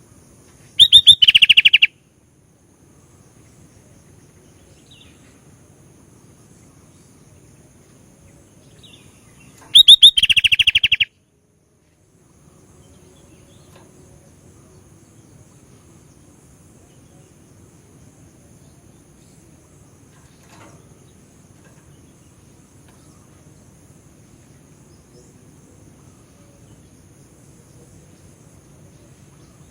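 Sooty-headed bulbul (kutilang) singing: two short, loud phrases of rapid notes, one about a second in and another about ten seconds in, with faint steady background noise between them.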